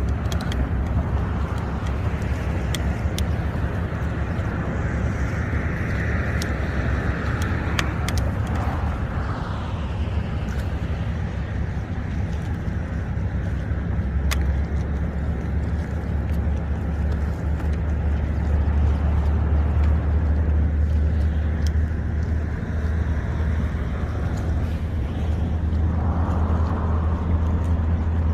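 Steady low engine drone under a continuous wash of wind or road noise, swelling slightly about two-thirds of the way through.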